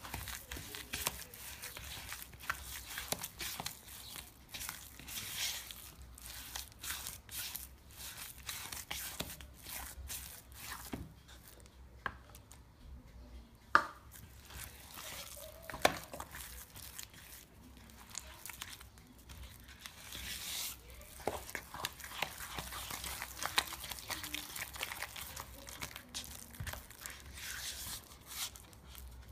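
Spatula stirring thick chocolate brownie batter in a mixing bowl: a dense run of small scrapes and clicks, with two sharp knocks about two seconds apart midway.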